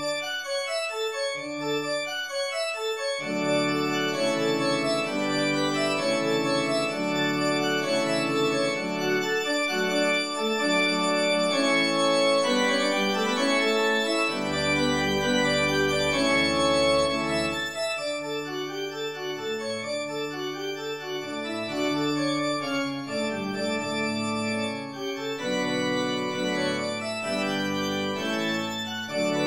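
Organ music: slow sustained chords with a moving upper line, lower voices entering a few seconds in, and a deep held pedal note for a few seconds about halfway through.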